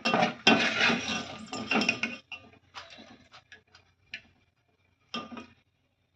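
A metal spoon scraping and clinking against a cooking pan, dense for the first two seconds, then scattered single clinks.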